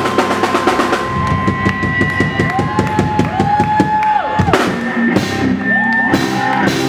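Live band playing: drum kit with a run of rapid strokes in the first second or so, under electric bass and electric guitar.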